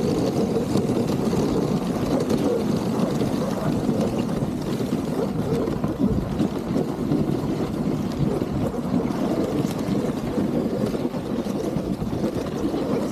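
Dog sled running along a packed snow trail: a steady, rough rumble and scrape from the runners and the sled frame.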